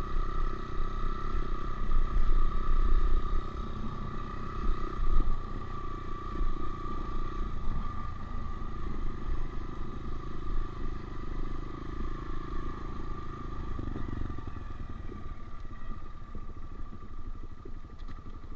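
Honda CRF125F dirt bike's single-cylinder four-stroke engine idling steadily, easing a little about three-quarters of the way through.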